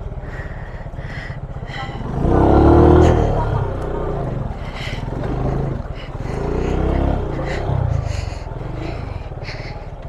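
Motorcycle engine running under load and revving up and down in repeated surges as it crawls over rocks through a shallow river crossing. The strongest surge comes about two to three seconds in.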